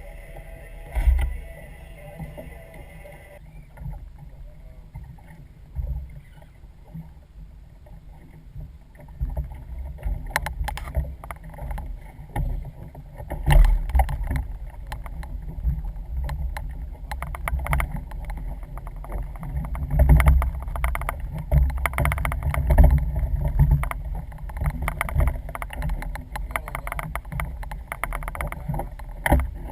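Sounds on a small boat at sea: low gusty rumble of wind on the microphone, with many knocks and slaps against the hull, busier in the second half. A steady hum stops about three seconds in.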